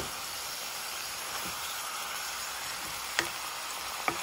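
Wild greens sizzling in a hot pan, a steady hiss, with two sharp knocks of a wooden spatula against the pan a little after three and four seconds in.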